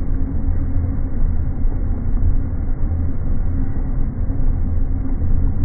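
Propane burner running at full under a crawfish boiling pot, a loud, steady low rumble, with the water at a rolling boil.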